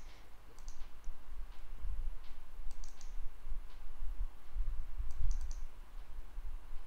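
Clicking at a computer: quick keyboard and mouse clicks in three short runs about two seconds apart, over a low hum.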